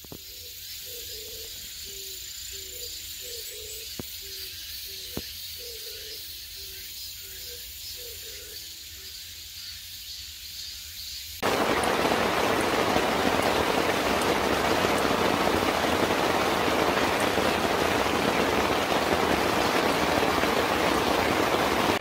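Heavy, steady rain starting abruptly about halfway through. Before it there is only quiet forest air with a faint low call repeating over and over.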